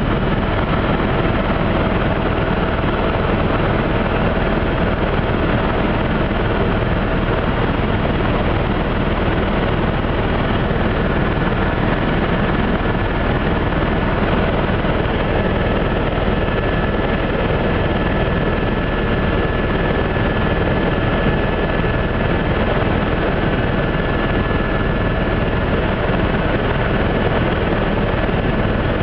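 Helicopter heard from inside the cabin in steady flight: a constant loud drone of engine and rotor, with a few faint steady whines.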